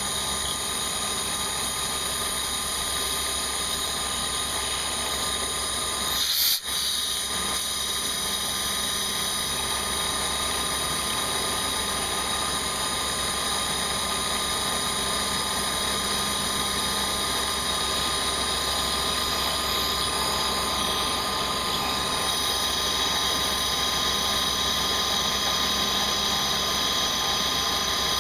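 CNC milling machine running while milling a part: a steady spindle whine with several high tones over a hiss. There is a brief jolt and dropout about six and a half seconds in.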